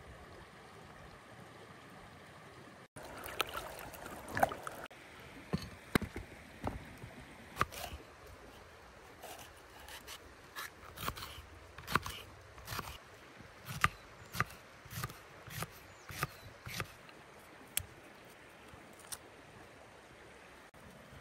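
Wet branches being cut into short lengths for the stove: a run of sharp, irregular snips and snaps, roughly one a second, starting about three seconds in and stopping near the end, over the steady rush of a stream.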